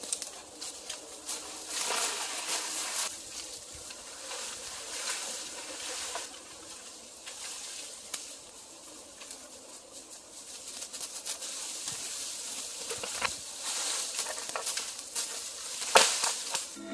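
Dry bamboo leaves and leaf litter rustling and crackling as a freshly cut bamboo stalk is swung and dragged, its leafy top brushing through the dead leaves, in uneven swells. A few sharp knocks, the loudest near the end.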